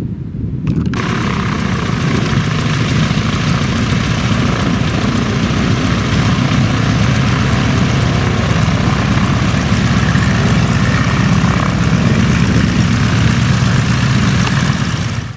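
Radial engine of a Boeing Stearman biplane running steadily at taxi power, coming in suddenly about a second in.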